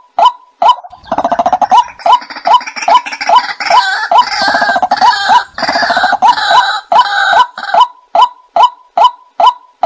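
White-breasted waterhen calling: a monotonous 'kwak' note repeated about twice a second, joined from about a second in by a denser, harsher chorus of calls that drops away after about seven and a half seconds, leaving the steady 'kwak' series.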